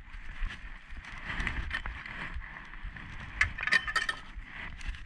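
Spinning reel being worked against a hooked fish that is pulling hard, giving a run of mechanical clicking and rasping. A quick cluster of sharp clicks comes about three and a half seconds in, over low bumps and rubbing from handling.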